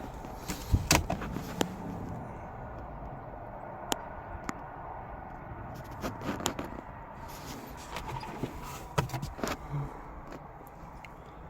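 Scattered clicks and knocks of a car door and interior trim being handled, over a steady low background hum.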